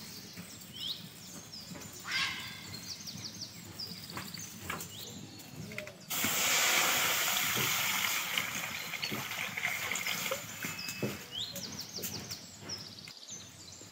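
Water poured into an empty metal kadai: a loud, steady splashing hiss that starts suddenly about six seconds in and tapers off over a few seconds. Birds chirp with short falling calls throughout.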